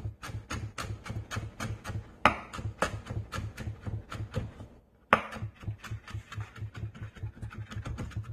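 Chef's knife rapidly fine-chopping scotch bonnet pepper on a plastic cutting board: quick, even knife strikes about five a second, with a short pause a little past halfway before the chopping resumes.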